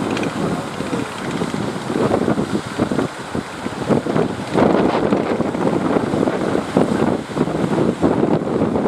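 Gusty wind buffeting the microphone by the sea, over the rush of waves.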